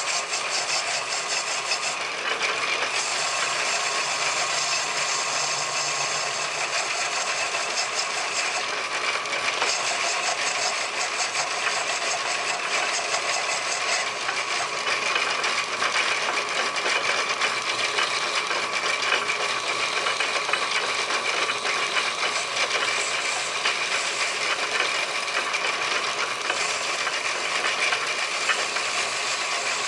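Metal lathe running and turning a cast brass piston, the tool bit cutting the brass with a steady, fast fine rattle; the cast brass keeps grabbing at the tool bit.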